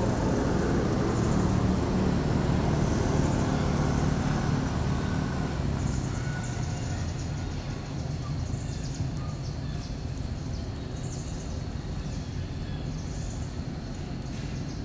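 A motor vehicle's engine drones low and fades away over the first six seconds, leaving quieter outdoor ambience with short high chirps and a faint steady high-pitched tone.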